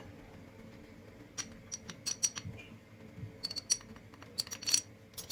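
Light clinks and taps of kitchen utensils against dishes, in two quick clusters, some with a short ringing note.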